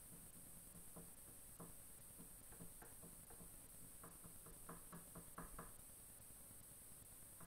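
Near silence with a scatter of faint, sharp clicks or taps, a few at first and then a denser irregular run around the middle.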